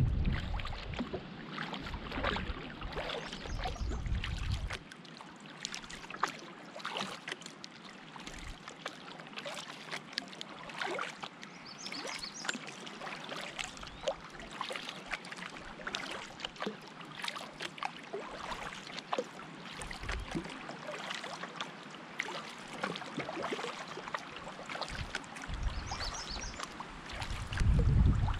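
Canoe paddling: the paddle dipping and pulling through the water, with splashes and drips off the blade throughout. Wind rumbles on the microphone for the first few seconds and again at the very end.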